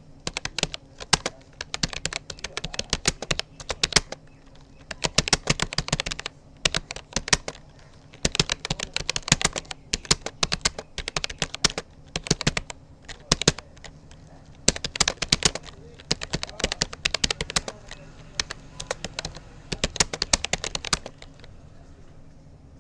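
Typing on a Rapoo computer keyboard: rapid runs of key clicks broken by short pauses, stopping about a second before the end.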